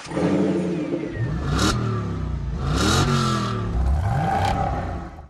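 Car engine revving, its pitch climbing and falling back about three times, then fading out at the end.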